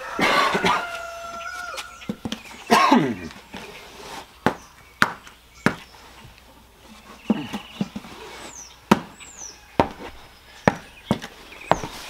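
Footsteps and sharp knocks on a concrete driveway at irregular intervals. A squeal opens the sound, a second squeal falls in pitch about three seconds in, and a bird gives short high chirps near the end.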